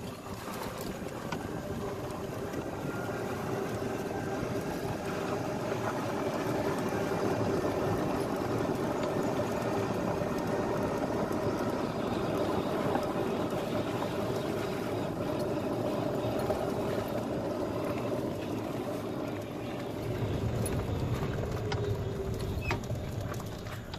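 Golf cart driving along: a steady running drone with road noise.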